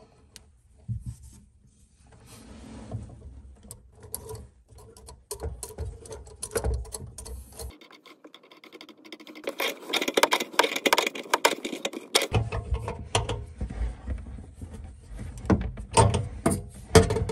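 Metal and plastic washers and a mounting nut being worked onto an RO faucet's threaded shank under a sink: irregular clicks, scrapes and rubbing, with a denser run of rapid clicking in the middle as the nut is spun on.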